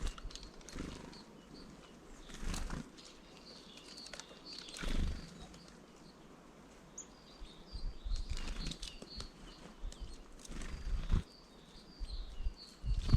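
Small birds flying to and from a bird feeder: brief wing flutters and soft bumps every second or two, with faint high chirps between.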